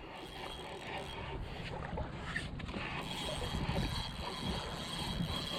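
Wind buffeting the microphone over the wash of water at the shoreline, a rough steady noise with uneven low rumbles. A faint thin steady high whine comes in about halfway through.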